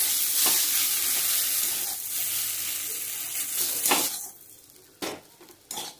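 Spiced mashed-potato filling sizzling in hot oil in a metal kadai, stirred with a metal spatula that scrapes the pan now and then. The sizzling falls away about four seconds in, followed by two short clicks.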